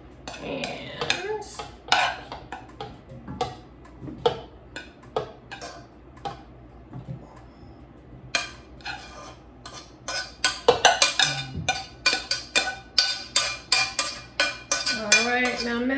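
Metal spoon scraping and knocking against a saucepan, working thick cooked churro dough out into a mixing bowl, with a quick run of taps in the second half.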